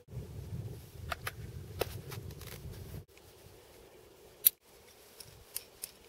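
Climbing gear handled by hand: sharp metallic clicks of a harness, clip and lanyard. A few come over a low rumble in the first half, then a handful more after a cut, the loudest about four and a half seconds in.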